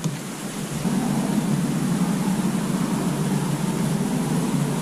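Wind buffeting the microphone: a steady low rushing noise that comes up about a second in and holds.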